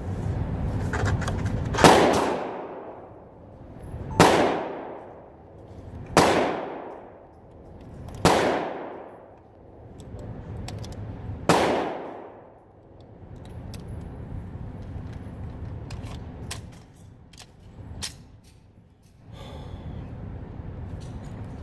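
Glock 17 9mm pistol fired five times at a slow, even pace, about one shot every two seconds, each report sharp with a long echoing tail. A few fainter sharp reports follow near the end.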